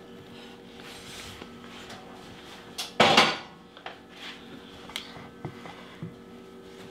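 A cast-iron skillet set down on a counter with one loud clunk about three seconds in, with a few lighter knocks of dishes around it.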